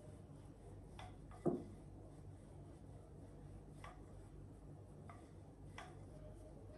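Wooden rolling pin rolling out dough on a floured granite countertop: quiet rubbing with a few light clicks and one sharper knock about one and a half seconds in.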